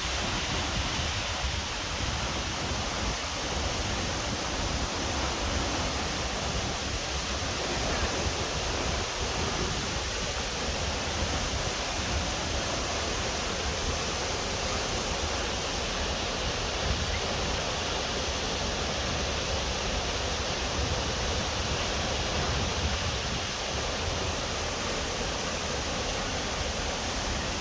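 Waterfall rushing with a steady, unbroken roar of falling water.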